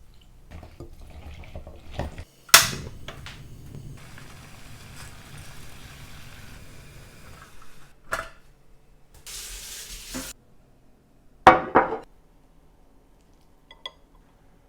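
Kitchen utensils and dishes being handled while a dish is prepared: sharp clinks and knocks against bowls, the loudest about two and a half seconds in and a pair near the end, between stretches of scraping and stirring, with a short hiss a little past the middle.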